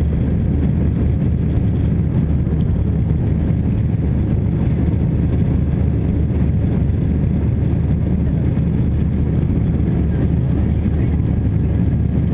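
Steady cabin noise inside an Airbus A320-200 climbing after take-off: a constant low rumble of the jet engines and rushing air, without change in pitch or level.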